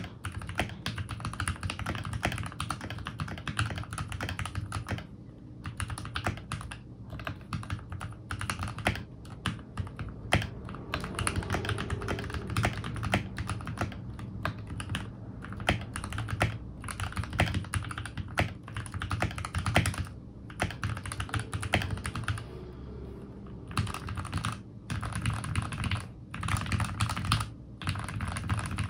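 Continuous typing on a Keychron K8 Pro mechanical keyboard with pre-lubed Gateron G Pro Red linear switches: a quick, dense run of keystrokes with a few brief pauses.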